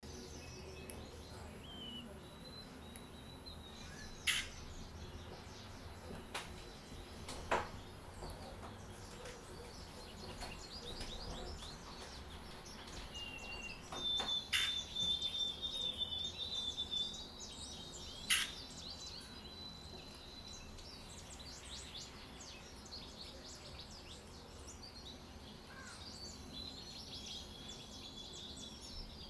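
Songbirds singing and chirping in the background, with a high, steady trill for a few seconds midway and again near the end. A few sharp clicks stand out, the loudest of them about four, seven and eighteen seconds in.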